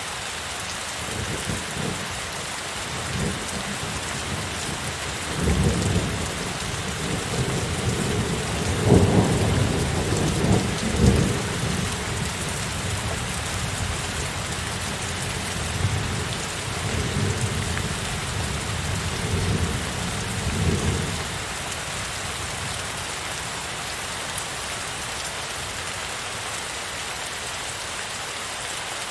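Heavy rain falling steadily, with a long roll of thunder rumbling under it from about a second in. The thunder is loudest near the middle and dies away about two-thirds of the way through, leaving only the rain.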